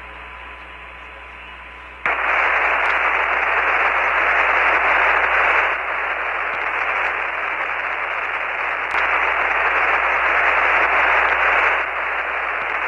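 Radio static on the Apollo 15 air-to-ground voice link: a faint hiss that jumps up sharply about two seconds in to a strong, even, narrow-band hiss of an open channel with no one talking, shifting slightly in level a few times.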